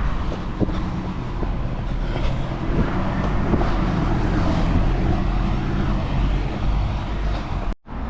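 Steady wind rumble on the microphone mixed with road traffic noise.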